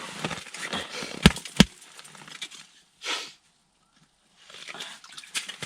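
Two sharp knocks about a third of a second apart amid rustling and scraping, then a short hiss.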